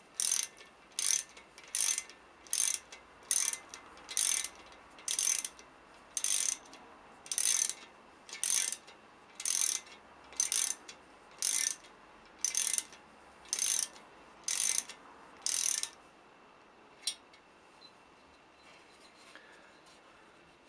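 Hand ratchet wrench tightening a piston oil-spray nozzle bolt: a short burst of ratchet clicks on each back-swing, about once a second, some seventeen times. Then it stops, with one last click a little later.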